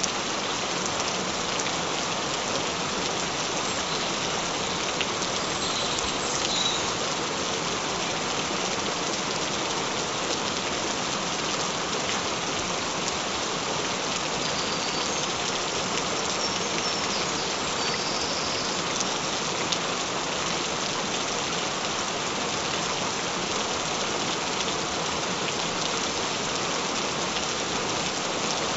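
Steady gentle rain falling, an even, unbroken hiss of drops at a constant level.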